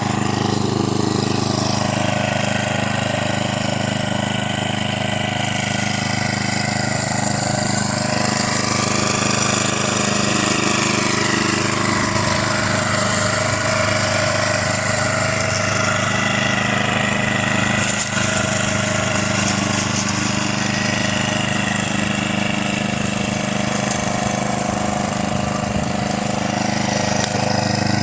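Walk-behind petrol lawn mower engine running steadily as the mower is pushed back and forth cutting grass.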